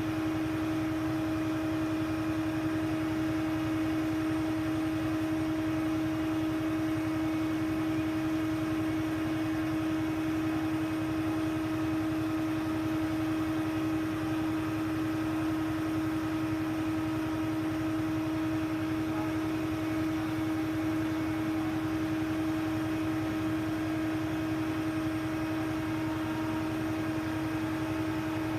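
A crane runs steadily, giving a constant machine hum with a single held whine over it that does not change in pitch or level.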